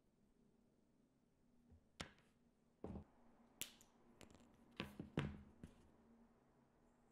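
Small flush cutters snipping heat-shrink tubing into short pieces, with handling clicks: about eight sharp clicks and snips over three and a half seconds, starting about two seconds in.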